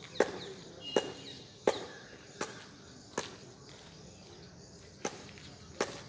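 A series of sharp, short knocks at uneven intervals, roughly one a second with a pause of about two seconds before the last two. Small birds chirp faintly behind them.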